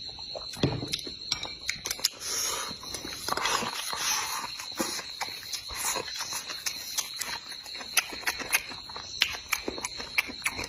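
Close-up eating sounds: chewing and mouth noises with frequent small clicks and taps, louder for a couple of seconds near the middle, over a steady high-pitched whine.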